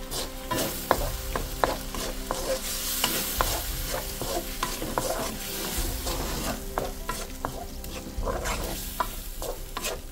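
Vegetables and an egg sizzling in a hot stainless-steel wok while a wooden spatula stirs them, with frequent sharp knocks and scrapes of the spatula against the pan.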